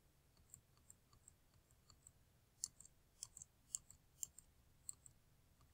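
Faint, irregular clicks of a computer mouse's scroll wheel as the document is scrolled, over near silence.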